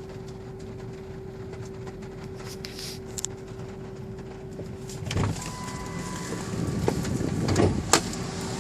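1998 Ford Expedition's 5.4-litre V8 running with a steady hum over its rumble, a noise its owner hears at idle and while driving but cannot trace. In the second half the rumble grows louder, with a few sharp knocks.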